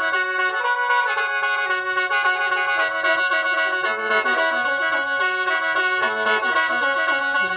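A khaen, the Lao bamboo free-reed mouth organ, played solo: a lively melody of quick, stepping notes over steady held drone notes.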